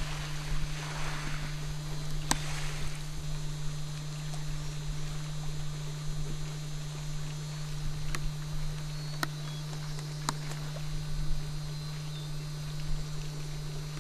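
Sea kayak paddle strokes splashing and dripping in calm sea water, loudest in the first few seconds, with a few sharp clicks and a steady low hum underneath.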